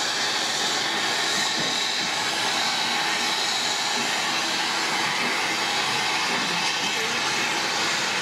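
Steady, even hiss of steam from an 1888 LNWR 'Coal Tank' 0-6-2T tank engine standing in steam, without exhaust beats.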